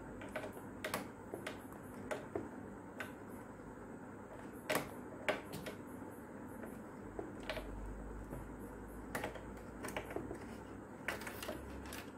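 Irregular light clicks and taps of plastic parts being handled, the casing and pieces of an opened rechargeable fan knocked and shifted by hand. The two sharpest clicks come about five seconds in.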